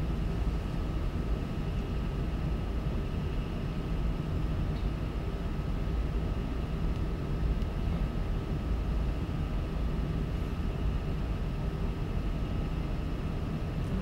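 Steady room noise: an even low rumble with a faint steady high whine running through it.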